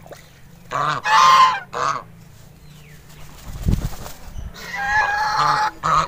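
White domestic geese honking: a burst of harsh honks about a second in, then a longer run of honks over the last second and a half. A low thump comes about halfway through.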